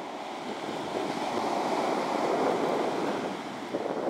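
Shore-break surf breaking and washing up a sandy beach: a steady rushing wash that swells about half a second in and eases slightly near the end.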